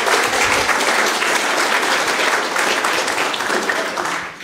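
Audience applauding, steady and then dying away near the end.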